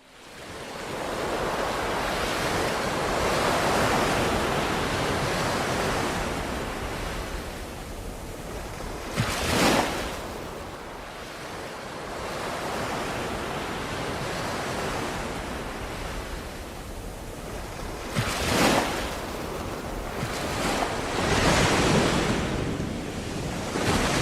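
Ocean waves washing in and out, fading in at the start and swelling and easing, with brief louder splashes of breaking waves about ten, eighteen and twenty-one seconds in.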